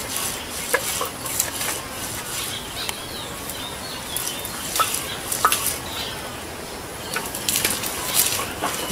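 A wooden roller rubbed and knocked against a wooden board, crushing onion by hand: uneven scraping strokes with a few sharp knocks.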